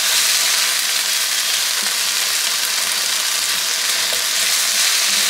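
Sausage and sliced nopales (cactus paddles) frying in a pan on medium heat: a steady, dense sizzle with spattering.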